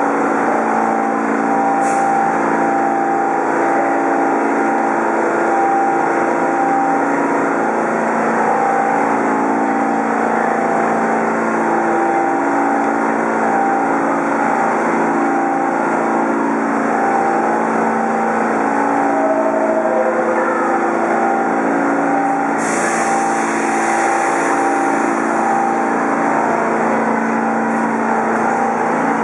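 R46 subway train standing at an underground station platform, its onboard equipment giving a steady hum with several held tones that switch on and off. A brief hiss comes about two seconds in, and a longer hiss comes a few seconds past the twenty-second mark.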